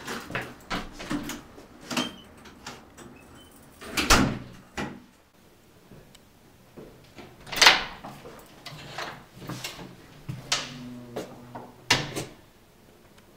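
Doors being opened and shut: a series of latch clicks, knocks and door thuds, the loudest about four seconds in and just before eight seconds, with another near the end.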